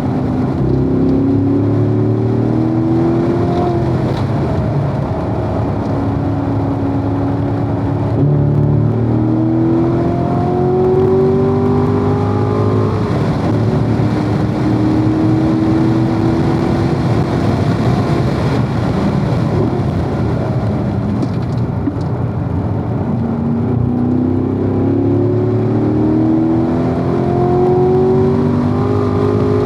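Corvette V8 engine under hard acceleration on a race track, climbing in pitch through repeated upshifts, holding a steady pitch for a few seconds in the middle, then going off throttle before pulling up through the gears again near the end.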